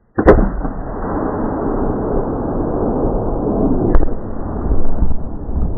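A Tannerite explosion set off by a .223 rifle shot: a sharp blast about a quarter second in, then a loud, continuous rushing rumble as the fireball burns. A second sharp crack comes about four seconds in.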